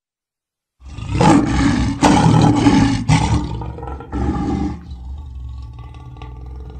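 A lion roaring: several loud, rough roars in a row starting about a second in, then dying away.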